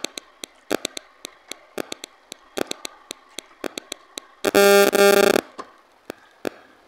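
Fingertips tapping and scraping on a stainless steel plate while mixing rice and dal by hand: a run of sharp, irregular clicks. About two-thirds of the way in comes a loud, steady pitched tone lasting about a second.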